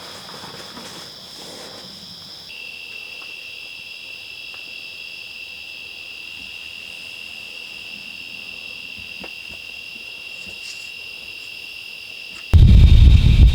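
Crickets chirring steadily in a chorus of high, even tones. Near the end, a sudden loud low rumble cuts in and drowns them out.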